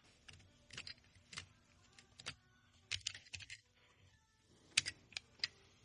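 Faint, irregular clicks and taps of tools and small hard parts being handled while the LG linear compressor is taken apart, with a few quick clusters of clicks.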